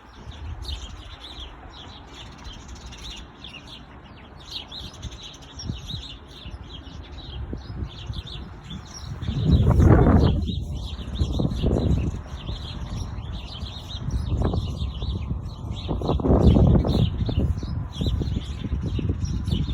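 Many small birds chirping and twittering continuously, over a steady low rumble. Two louder rumbling swells rise over the chirping, one about halfway through and one near three-quarters of the way.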